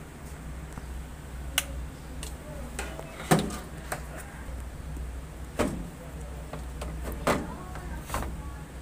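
Sharp plastic clicks and knocks as the top control-panel cover of a top-load washing machine is unclipped and lifted off, about five snaps spread over several seconds, the loudest about a third of the way in. A steady low hum runs underneath.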